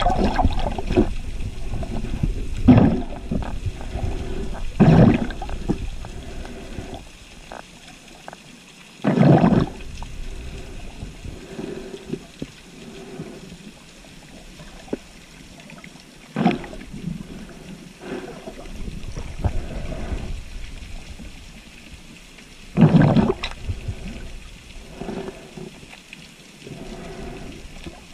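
Muffled underwater water noise with a steady low rumble, broken by several loud, short rushing gushes spaced a few seconds apart.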